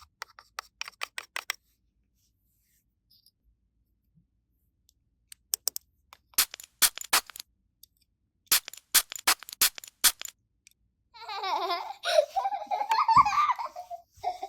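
Sharp clicks and taps of small plastic toy pieces being handled, in a few quick clusters with a pause between. About eleven seconds in, a high giggling voice begins.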